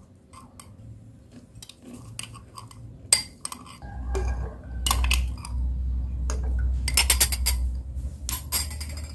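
A metal spoon clinks against a glass bowl and soaked almonds drop into a blender jar as a run of small clicks and clatters. The clatters bunch up in the second half. A low rumble sits underneath from about four seconds in.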